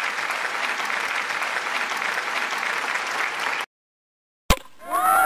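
Crowd applause, a steady dense clapping that cuts off abruptly about three and a half seconds in. After a short silence a sharp click, then a new sound of several gliding tones begins near the end.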